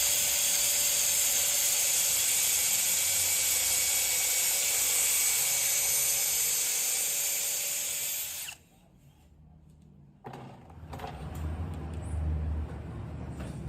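Power drill running steadily at a constant high speed, then cutting off abruptly about two-thirds of the way through. After a short quiet spell come a click and low, uneven handling noises.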